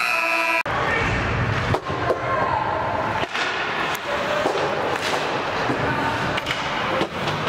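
Ice hockey play heard at rink level: sticks and puck clacking and sharp knocks against the boards several times over skating noise, with a short tonal note at the very start.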